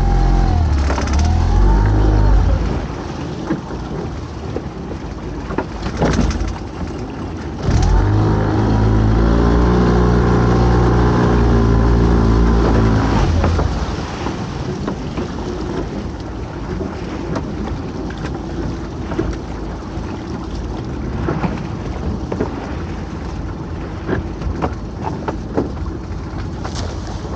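Boat engine revving up briefly at the start, then held at higher revs for about six seconds from about eight seconds in, before dropping back to a lower, steady running sound.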